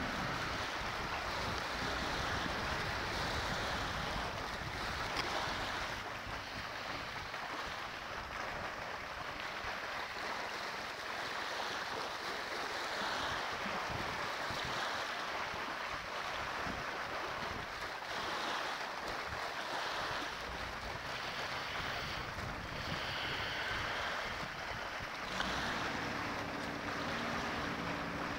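Wind on the microphone and choppy water washing over a rocky shore, steady throughout. A boat engine's low drone is faintly present at the start and again for the last few seconds.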